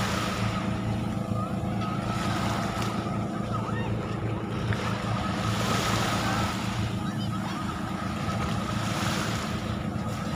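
Beach ambience with a steady low engine hum throughout, over wind and surf noise, with faint distant voices.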